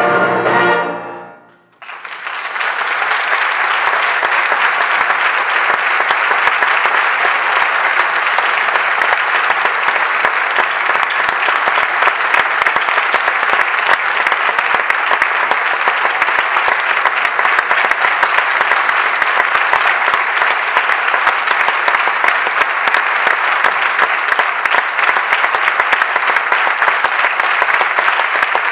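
An orchestra's final chord cuts off about a second and a half in, and a theatre audience breaks into steady, sustained applause.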